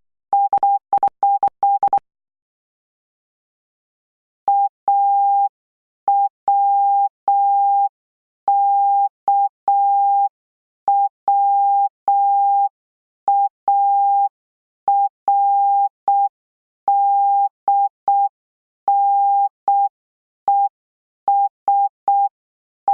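Morse code practice tones at a single steady pitch keyed on and off: a quick run of dots and dashes for about two seconds, a pause, then a slower, evenly spaced run of dots and dashes spelling out a word letter by letter.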